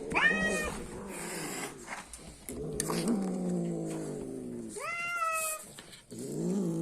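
Sphynx cat yowling and growling while it guards a piece of meat taken from a dog. Two short, high cries that rise in pitch come near the start and about five seconds in, with long, lower, slowly falling growling calls between and after them.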